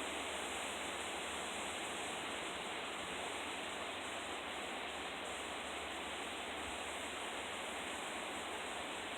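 Steady, even rushing noise of strong wind and river water, with no distinct events.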